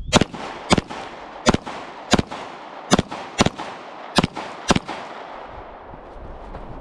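Eight pistol shots, spaced about half a second to under a second apart, each followed by a rolling echo across the range.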